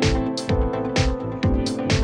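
Background music: a pop track with a steady drum beat.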